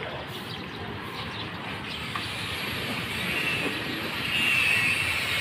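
Street traffic: a motor vehicle approaching and passing, its noise growing louder over the last few seconds, with a faint high whine.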